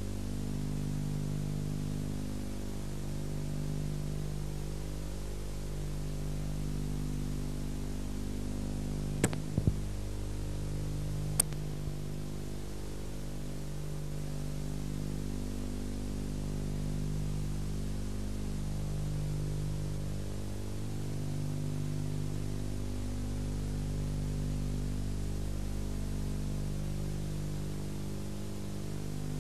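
Steady electrical hum with a stack of overtones and a light hiss, its lower tones swelling and dipping every few seconds, with a few sharp clicks about nine and eleven seconds in.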